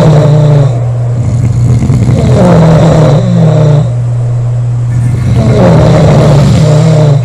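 Women snoring loudly: rasping, pitched snores about every three seconds, over a steady low hum.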